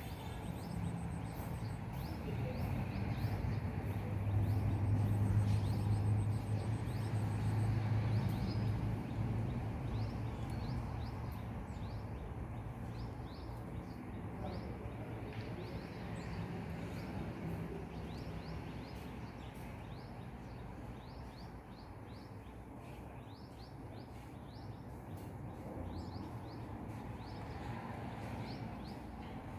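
Outdoor garden ambience: many short high bird chirps over a steady low hum, the hum strongest in the first third.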